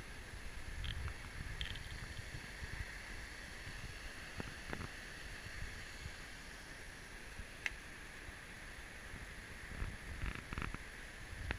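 A shallow, rocky river running over small cascades, a steady hiss of flowing water. Low rumbles of wind on the microphone come and go, and there are a few faint short clicks.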